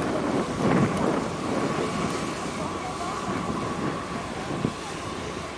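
Wind buffeting the microphone aboard a small moving boat, over the rush of water and the boat's engine running with a faint steady whine.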